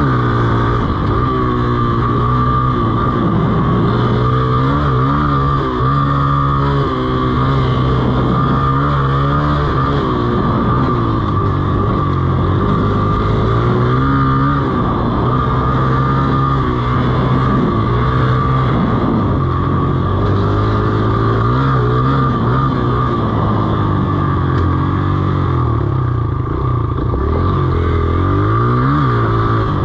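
Dirt bike engine heard from the rider's seat, revving up and dropping back over and over as the bike accelerates along a trail. A steady high whine runs underneath.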